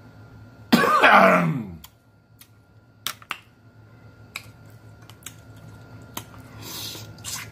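Mukbang eating sounds: a loud vocal moan falling in pitch about a second in, then scattered sharp clicks of mussel shells against long fingernails as the meat is picked out, and a short wet slurp near the end.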